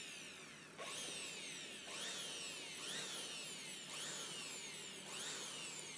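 Handheld electric air blower being pulsed on and off about once a second to blow dust out of a laptop's chassis. Its motor whine rises quickly with each burst, then falls away as it coasts down.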